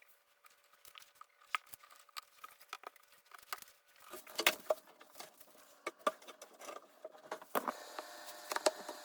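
Irregular light clicks and knocks of wood parts and tools being handled during cabinet assembly. A faint steady hum comes in about seven and a half seconds in.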